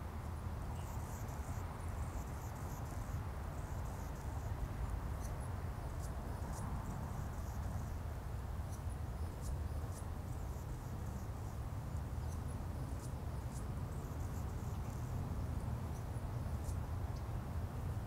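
Outdoor wetland ambience: a steady low rumble underneath, with high, thin chirps and ticks scattered throughout.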